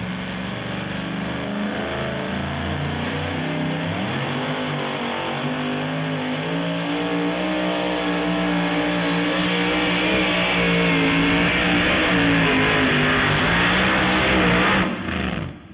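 Modified two-wheel-drive pulling truck's engine running flat out under load as it drags the sled down the track. Its pitch rises slowly and it grows louder, then the sound cuts off suddenly near the end.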